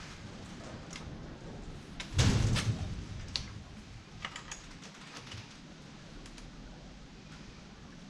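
Light clicks and rattles from hands working a child's bike rear hand brake, its brake arm and cable being adjusted and tightened. A louder knock and rattle comes about two seconds in, then scattered small clicks.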